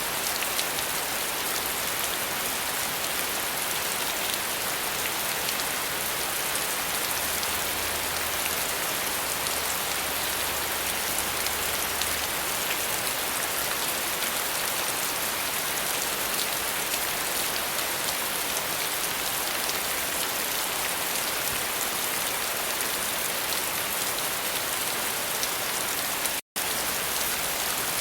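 Steady rain falling, a dense even patter of many drops. The sound cuts out for a split second near the end.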